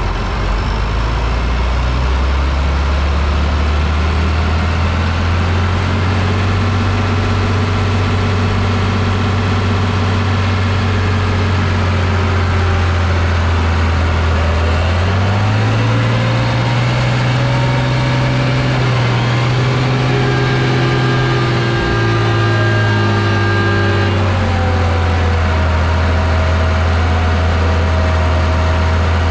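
Farm tractor engine running hard under load while pulling a weight sled in a tractor pull. It holds a steady pitch, climbs higher about halfway through, holds there for several seconds, then drops back down near the end.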